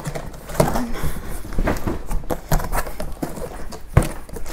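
A cardboard box and its packaging being handled: irregular knocks and rustling, with one loud thump about four seconds in.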